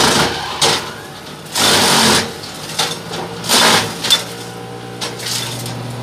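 Hasatsan DP 700 T tractor-driven wood chipper running. It chews through branches in loud bursts of chipping, about one and a half seconds in and again around three and a half seconds, with a sharp crack just after. For the last couple of seconds it runs empty with a steady hum.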